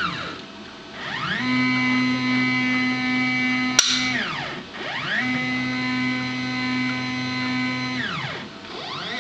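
Stepper-motor whine from a CNC-converted Sieg X2 mini mill as it moves the table between dot-punch locations. The whine rises in pitch as the axis speeds up, holds steady, then falls as it slows. This happens in two long moves, with short up-and-down whines between them and a single sharp click about four seconds in.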